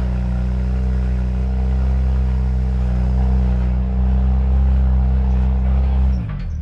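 Jeep Wrangler JL engine running steadily under load on a rock-crawling line, its note holding for about six seconds and then falling off sharply near the end.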